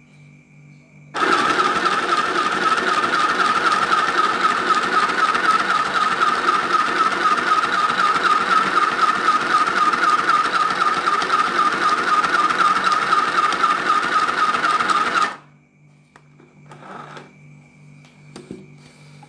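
Mini electric sewing machine running steadily for about fourteen seconds, its small motor and needle mechanism making a fast, even pulsing rattle; it starts abruptly and stops suddenly.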